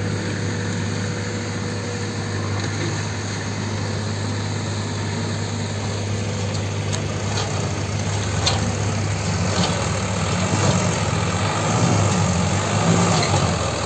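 Sonalika DI 745 Sikander tractor's three-cylinder diesel engine running steadily, a little louder in the second half, while it pulls its tipping trolley through a heap of loose soil. A few faint clicks come through around the middle.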